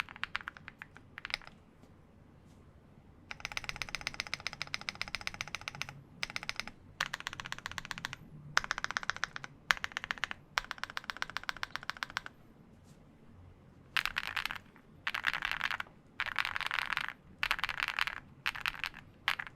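Mammoth75 mechanical keyboard with KNC Green Jacket linear switches being typed on: fast runs of keystrokes in bursts of one to three seconds, with short pauses between them.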